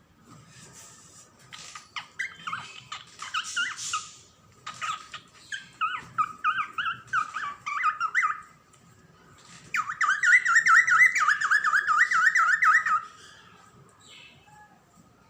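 Female cockatiel chirping and chattering: scattered soft chirps, a run of quick rising chirps around the middle, then the loudest stretch, a fast repeated warbling trill lasting about three seconds before it quiets down.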